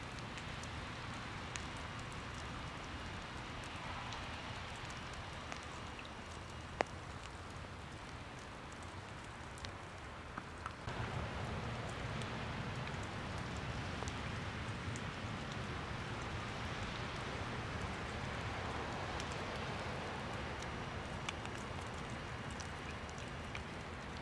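Steady outdoor background noise: a hiss over a low rumble, with a few faint clicks and one sharp click about seven seconds in. It gets louder about eleven seconds in.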